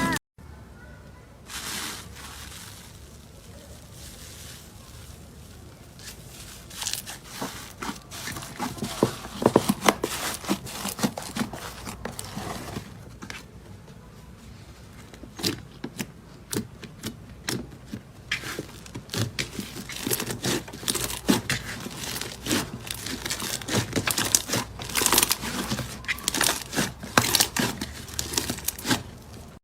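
Slime being pressed and worked by hand, making irregular sticky clicks and crackles that bunch into denser flurries at times.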